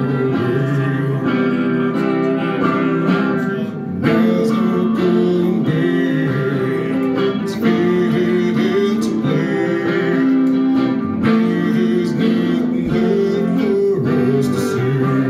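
Live solo performance: a man strumming a semi-hollow electric guitar and singing along into a microphone.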